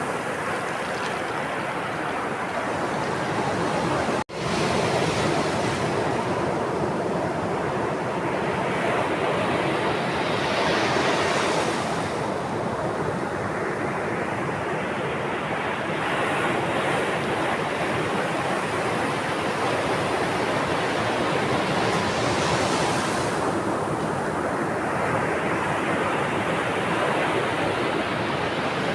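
Sea waves breaking and washing in, a steady rush of surf that twice builds and brightens, about a third of the way in and again about three-quarters in, then falls back sharply. A momentary dropout to silence about four seconds in.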